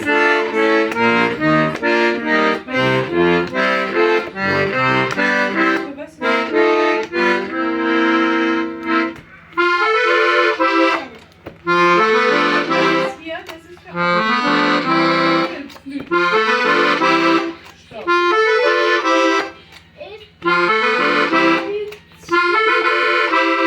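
Hohner Ouverture accordion being played: a quick run of melody notes over bass notes for the first several seconds, then held chords in short phrases with brief pauses between them.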